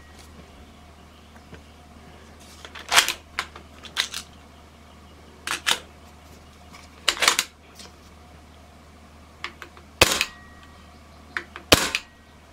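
Hatsan Blitz .22 PCP air rifle, fitted with a DonnyFL Emperor silencer and 14mm end cap, firing single shots in semi-auto: about six sharp suppressed cracks, one to two and a half seconds apart, some followed closely by a smaller crack. The action is cycling properly with each shot.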